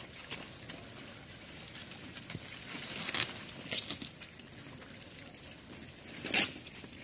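Young pigs chewing and working through fresh banana leaves and stalks: a steady rustle and munching, with a few sharper crackles, the loudest about six seconds in.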